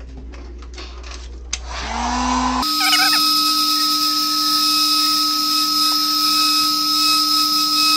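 Hot-air tool switched on to heat a phone screen's adhesive. Its fan spins up with a rising hum, and about two and a half seconds in the sound changes abruptly to a steady whine over a rush of air.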